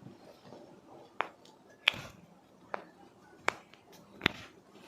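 Five sharp cracks about three-quarters of a second apart, the second the loudest: joints popping under a chiropractor's quick adjustment thrusts.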